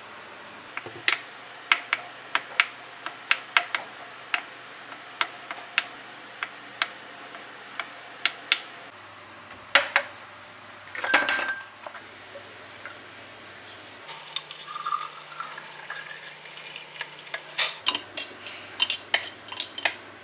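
Kitchen food-preparation sounds: a run of sharp taps about two a second, then clinks of dishes and a brief clatter, then quicker taps near the end.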